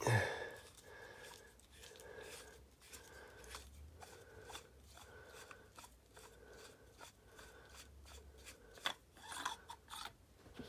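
Threaded metal sections of an 89sabers lightsaber hilt being unscrewed by hand: a sharp clack at the start, then repeated rubbing of the threads with many small clicks as the sections are twisted apart, and a few louder clicks about nine seconds in.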